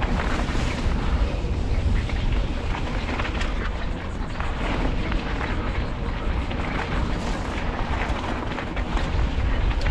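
Mountain bike riding over rough trail: wind rumbling on the action camera's microphone, with tyre noise and a steady scatter of rattles and knocks from the bike over the bumps.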